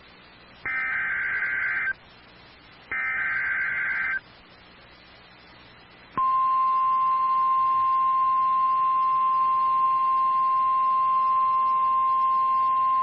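NOAA Weather Radio EAS alert signalling a severe thunderstorm warning: two warbling digital data bursts of about a second each, a second apart, the last repetitions of the SAME header that codes the warning. About six seconds in comes the steady single-pitch weather radio alarm tone, which holds to the end.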